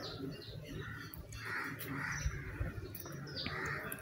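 Harsh, caw-like bird calls a few times, over light clicks from hands handling the plastic mini sewing machine.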